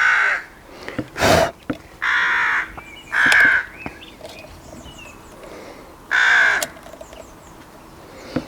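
A crow cawing repeatedly: about four loud, harsh caws of roughly half a second each, one at the start, two close together around two to three and a half seconds in, and one a little past six seconds. A single heavy thump comes a little over a second in.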